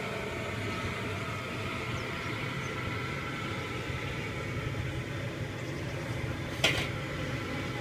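Propane burner under a kettle corn kettle running steadily as the kettle heats, a constant rumbling hiss. A single sharp clink about two-thirds of the way through.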